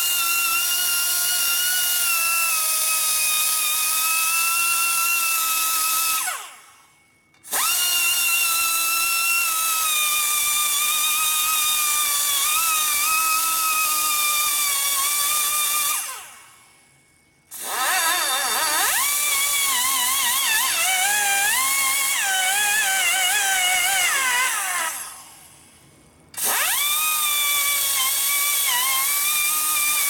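High-speed die grinder porting a Harley shovelhead cylinder head: a loud high-pitched whine that shuts off and winds down three times, about a second apart each time, then spins back up. In the third spell its pitch dips and wavers as it cuts.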